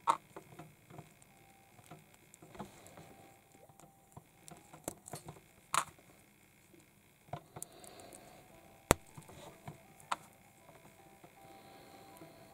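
Small plastic building-block figure parts being handled and fitted together: irregular light clicks and taps, with a few sharper clicks.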